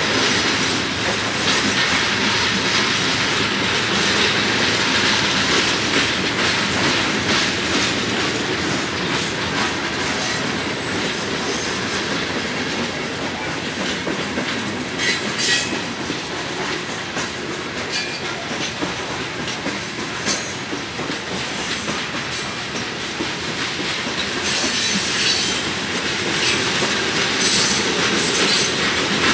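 A long freight train of coal hopper cars rolling past, its wheels clicking steadily over the rail joints. Short high-pitched wheel squeals come about halfway through and again several times near the end.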